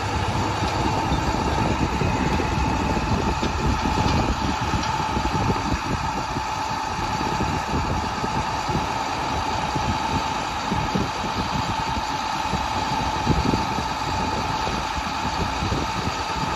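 Diesel engine of a 2009 International WorkStar 7400, a 7.6 L six-cylinder International MaxxForce DT, idling steadily.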